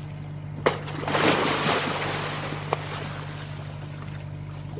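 Water splashing and churning as large gropers thrash at the surface beside a boat. The splashing starts sharply about a second in and then fades, over the steady hum of the idling boat engine.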